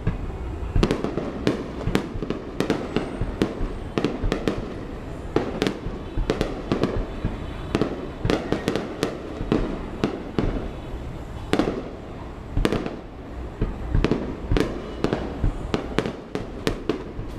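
Fireworks display: a dense, continuous run of aerial shell bursts, several bangs a second, with rumbling echoes between them.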